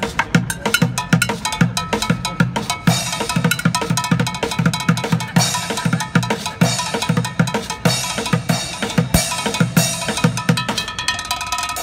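Bucket drumming: drumsticks beating upturned plastic buckets in a fast, steady rhythm, deep thuds mixed with sharper cracks on the rims.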